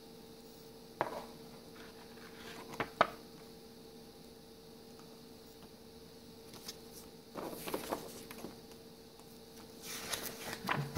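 Paper rustling and a few light taps as a folded paper leaflet is handled, folded and laid down, over a faint steady hum.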